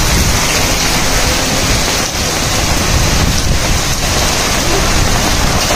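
Heavy rain pouring down: a loud, steady hiss with a low rumble underneath.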